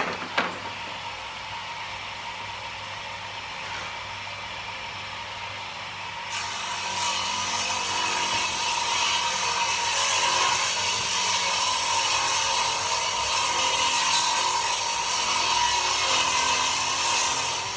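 Table saw running, with two sharp clicks at the start. From about six seconds in it is cutting through a wooden board, and the sound grows louder and hissier until near the end.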